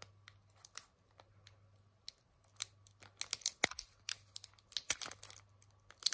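Foil wrapper of a Pokémon card booster pack crinkling and tearing as fingers pick at and peel open its top edge: irregular sharp crackles, sparse at first and coming thick and fast in the second half.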